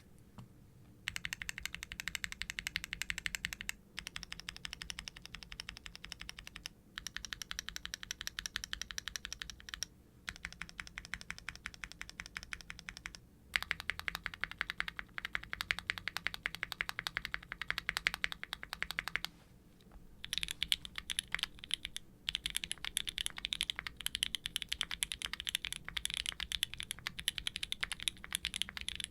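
Typing on a Qwertykeys Neo65 aluminium mechanical keyboard with a carbon fibre plate, no dampening foam, factory-lubed full-POM Gateron Green Tea Pro tactile switches and GMK Nord doubleshot ABS keycaps, giving a quiet, clacky keystroke sound. The typing starts about a second in and runs in fast bursts with short pauses between them.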